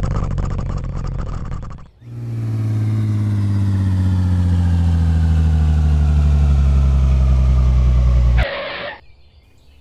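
Cartoon vehicle engine sound effects: a low engine rumble cuts off about two seconds in, then a car engine runs steadily for about six seconds, its pitch slowly falling, and ends in a short burst of hiss.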